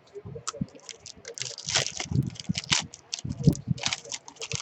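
Irregular clicks and rustling from small objects being handled.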